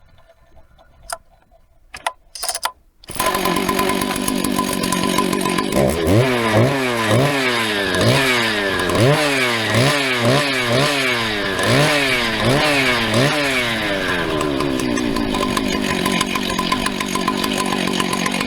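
Husqvarna 2100CD two-stroke chainsaw with a 395 carburettor. A few clicks, then the engine comes in suddenly about three seconds in. From about six seconds in it is revved in about a dozen quick throttle blips, each pitch rising fast and falling back, then it settles to a steady run.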